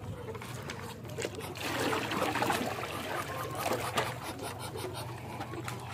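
Water poured from a plastic bucket into a plastic tub, splashing and trickling. It is heaviest from about a second and a half to four and a half seconds in, then eases to a dribble.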